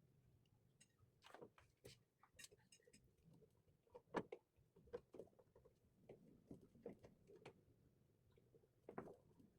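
Faint, irregular light clicks and taps, as of small objects being handled and set down, with the strongest tap about four seconds in.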